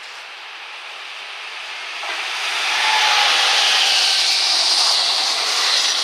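A train passing close: BB 75000 diesel locomotive BB 75403 hauling the Z 23500 double-deck electric unit Z 23503. The rushing wheel-and-air noise swells and is loudest from about two and a half seconds in, then falls away sharply as the last car clears near the end.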